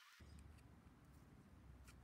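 Near silence: faint room hum, with a couple of faint small ticks as a rubber timing belt and its steel clip are handled with pliers.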